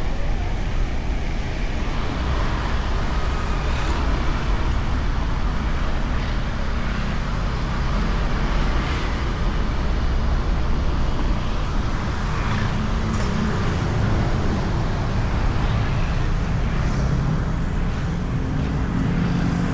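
Honda Beat scooter being ridden in traffic, its small single-cylinder engine running steadily under a heavy wind rumble on the bike-mounted camera's microphone, with other road traffic around.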